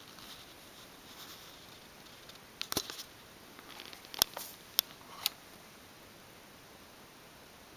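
Plastic handset of a Thrane terminal being picked up and handled: a quick cluster of light clicks and knocks about two and a half seconds in, then a few single sharp clicks over the next couple of seconds.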